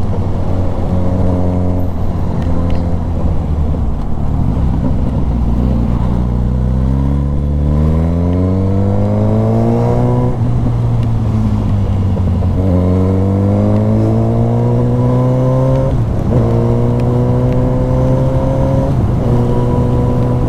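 Suzuki GSX-S1000's inline-four engine pulling hard under acceleration, its pitch climbing steadily and dropping at an upshift about ten seconds in, then climbing again to a second upshift about sixteen seconds in, before settling at a steady cruise. Wind noise on the microphone runs under it.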